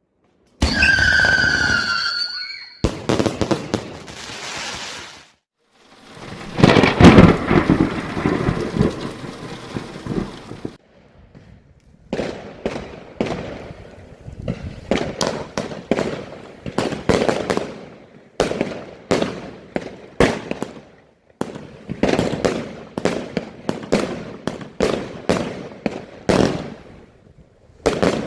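Alpha Fireworks 'The Vault' 144-shot, 25 mm consumer fireworks cake firing. It opens with two high whistling tones, then a dense run of bursts for several seconds, then a long string of separate shots and bangs at roughly two a second.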